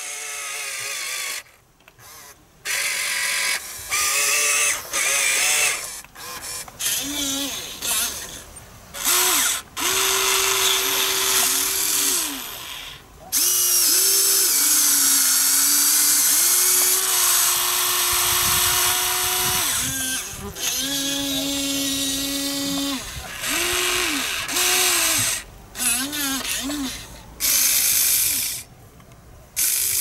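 Huina 1594 RC excavator's electric motors and gearboxes whining in short runs that start and stop every second or two as the machine is worked, the pitch sliding up at each start and down at each stop, with one longer unbroken run near the middle.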